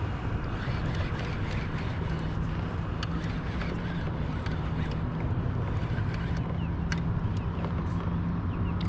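Pedal-driven fishing kayak moving through the water while trolling: a steady rush with a constant low hum and a few light clicks.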